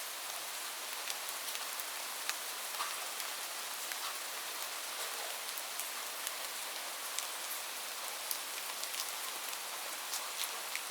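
Steady rain: an even hiss of rainfall with many separate drops ticking sharply and irregularly on a surface close by.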